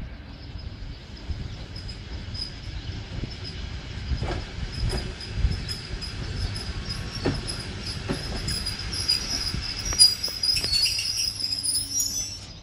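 ER9E electric multiple unit rolling into the platform as it slows to stop, with a high steady squeal from its wheels and brakes that grows louder over the last few seconds. A low rumble runs underneath, and the wheels knock over rail joints a few times.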